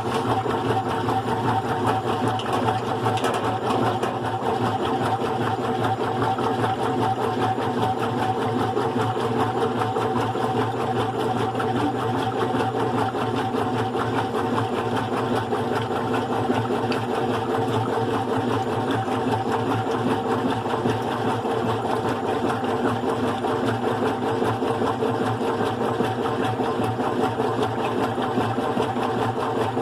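GE Profile top-load washing machine running with its single-speed motor driving the agitator through a load of bedding: a steady, even machine hum with a gear whine.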